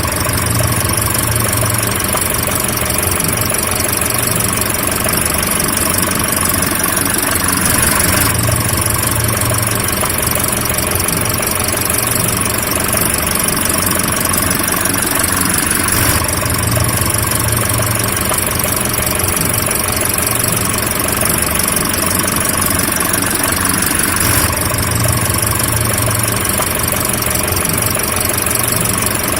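Car engine running steadily, a continuous low hum that repeats in a loop about every eight seconds.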